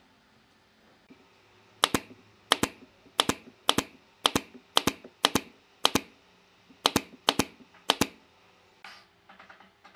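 Nail gun firing about a dozen shots into wooden slats, one to two a second, each a sharp double snap.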